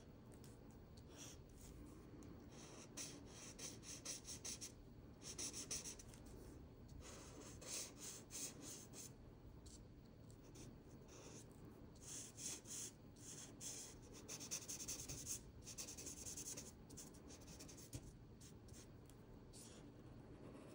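Faint strokes of an art marker's tip on drawing paper: runs of quick back-and-forth scratching with short pauses between, as gray shading is laid in.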